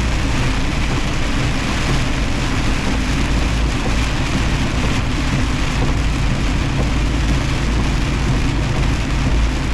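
Semi truck driving through heavy rain: a steady engine drone under the even hiss of rain.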